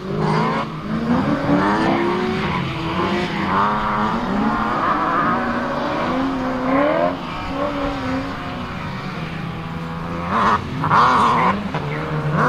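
BMW E36 Touring drift car's 3.2-litre M3 straight-six revving hard, its pitch rising and falling again and again as it slides, with tyres skidding on the wet tarmac. The loudest burst comes near the end.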